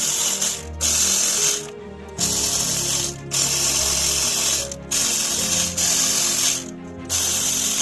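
Power ratchet running bolts down in about five bursts of one to two seconds each, with short pauses between.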